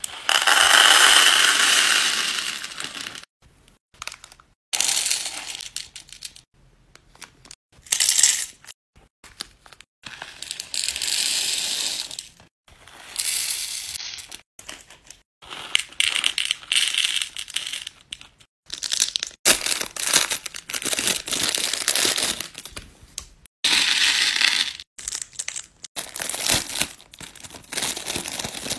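Small beads rattling and pouring into hard plastic bead-organizer boxes, heard as a run of short handling clips that start and stop abruptly. A foil zip bag crinkles near the end.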